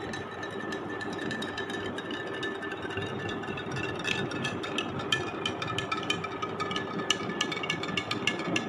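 Metal spoon stirring salt into water in a glass tumbler, tapping and clinking against the glass; the clinks come quicker and thicker in the second half.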